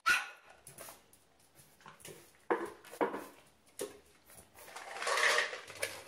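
French bulldog puppy giving a series of short, sharp barks, excited for the food bowl held above it. About five seconds in there is a longer, noisier clatter, which fits the plastic bowl and kibble as the bowl comes down to the floor.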